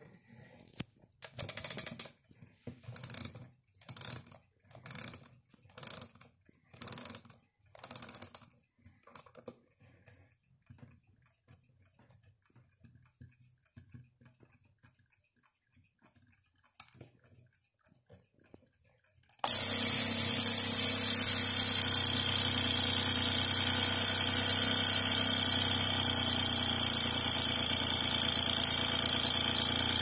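Wilco mechanical wind-up alarm clock: its key is wound in about seven ratcheting strokes, roughly one a second, followed by faint ticking. About 19 seconds in the alarm bell goes off suddenly and rings on loud and steady.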